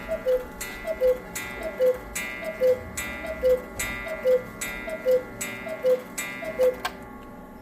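Cuckoo clock striking eleven o'clock: its falling two-note cuckoo call repeats evenly about every 0.8 seconds, nine times, stopping about 7 seconds in. Sharp mechanical clicks come with the calls, over the steady ticking of clocks.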